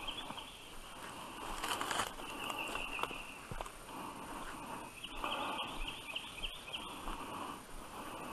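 Footsteps crunching through leaf litter and brush on a woodland trail. A bird sings short phrases of quick high notes that come back several times, and there is a brief brushing crackle about two seconds in.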